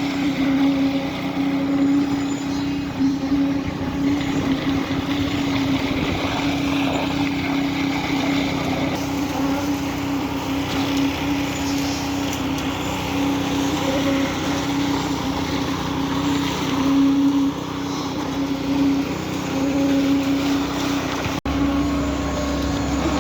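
Concrete truck's diesel engine running steadily at even revs. The sound cuts out for an instant near the end and comes back with a slightly different low hum.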